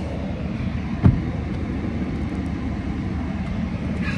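Work vehicle's engine running steadily, heard from inside the cab as a low rumble, with a single sharp knock about a second in.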